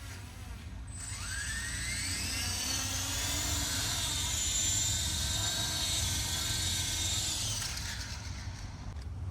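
3D-printed RC helicopter's brushless motor and rotor spooling up: a whine that starts about a second in, rises in pitch, then holds steady before cutting off shortly before the end.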